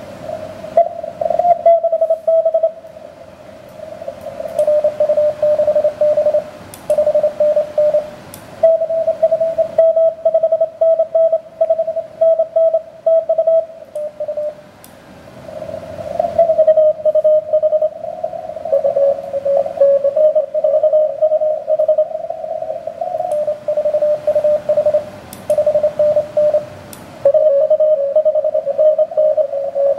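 Morse code (CW) from an amateur radio transceiver on the 17-metre band: keyed tones near 600 Hz, with signals at slightly different pitches overlapping at times, typical of several stations calling at once, and receiver hiss between the characters.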